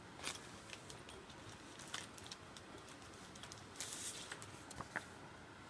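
Faint handling noises of game cards and components on a cloth-covered table: a scatter of light clicks and taps, with a brief rustle about four seconds in.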